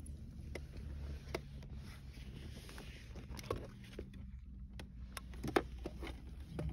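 Steady low hum of a car's engine idling, heard inside the cabin, with scattered small clicks and knocks of things being handled.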